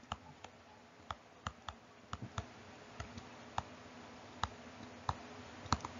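Irregular light clicks of a stylus tip tapping on a tablet screen while handwriting, a couple a second, over a faint steady hum.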